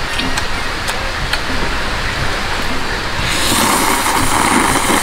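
A man slurping cup-ramen noodles with a quick, forceful suck in the Korean 면치기 style: one long, loud slurp starting a little over three seconds in and lasting under two seconds.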